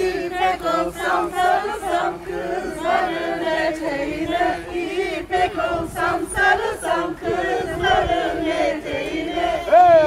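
A group of men and women singing a Turkish folk song (türkü) together, holding long notes in unison.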